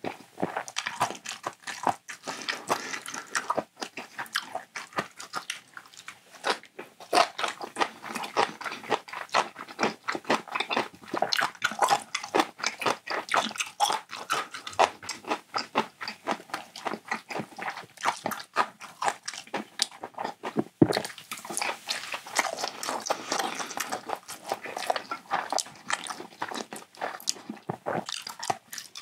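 Close-miked chewing of food, with biting and crunching and a steady run of small wet mouth clicks.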